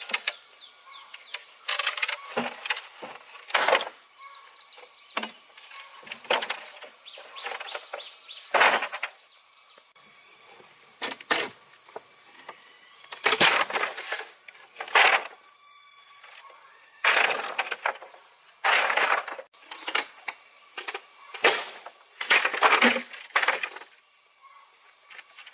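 Irregular cracks, knocks and scrapes from hand work on wood, coming every second or so with uneven force, over a faint steady high-pitched hum.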